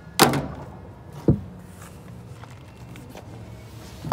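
Knocks and thuds of a cardboard shipping box being handled after it is cut open: a loud knock just after the start, a sharp low thump about a second later, and another knock near the end, over a low steady hum.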